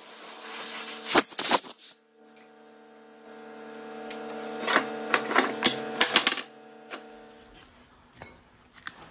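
Angle grinder with a 3M Cubitron abrasive disc running free without load: a steady motor whine starting about two seconds in, with a few light clicks, then spinning down near the end. Before it starts there is a hiss and two sharp knocks.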